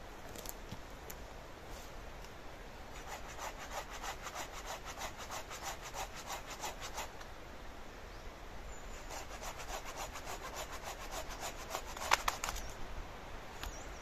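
Hand saw cutting through wood in quick back-and-forth strokes, about five a second, in two bouts with a short pause between. Near the end comes a brief louder burst.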